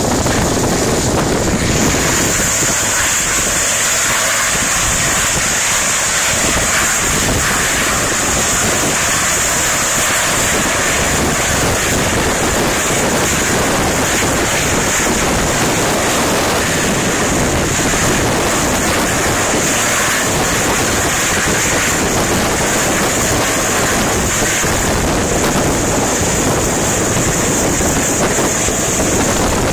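Steady wind rushing on the microphone, mixed with surf on the rocks and the drone of a sea-rescue helicopter hovering offshore.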